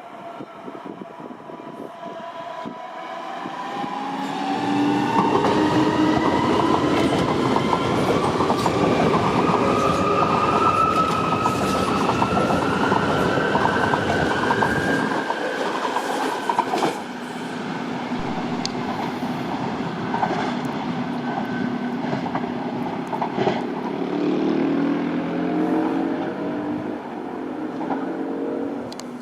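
Electric train pulling away, its traction motors whining in a steadily rising pitch as it speeds up, with its wheels clicking over the rail joints. The sound gets quieter about seventeen seconds in.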